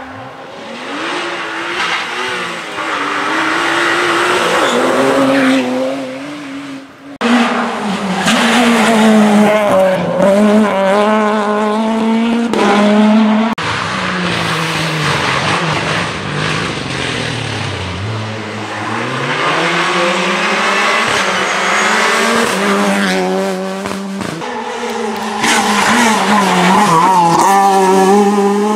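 Rally cars driven hard on a tarmac stage, engines revving up and dropping back through gear changes as each car accelerates and brakes past. The sound changes abruptly twice, about seven and thirteen seconds in, as one car's run gives way to another's.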